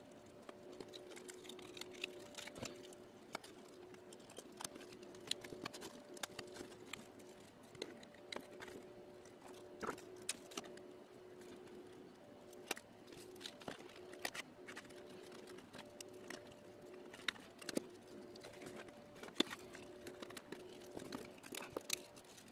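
Light, irregular clicks and taps of thin plywood case panels being handled and pressed together, tab into slot, around a small circuit board. A faint steady two-tone hum runs underneath.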